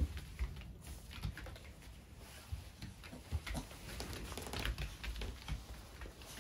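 Yorkshire terrier's paws and claws pattering and tapping on a foam floor mat and a wire pen panel as it jumps up: light, irregular taps with a few louder knocks.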